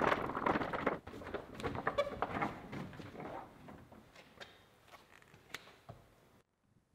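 Knocks and clatter of hard objects being handled and moved, busiest in the first few seconds and thinning out, ending in near silence.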